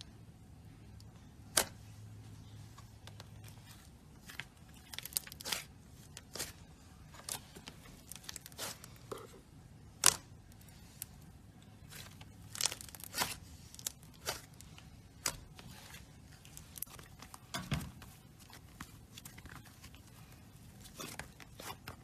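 Slime being squeezed and worked by hand, giving irregular sharp pops and crackles, the loudest about ten seconds in.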